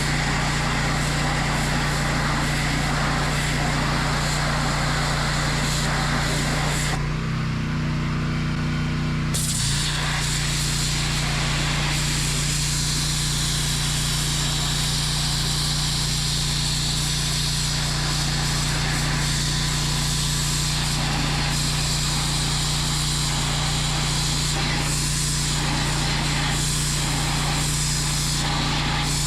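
A 3650 PSI pressure washer running steadily, its high-pressure jet hissing as it cuts into a pumpkin. About seven seconds in, the spray stops for a couple of seconds while the machine keeps running, then starts again.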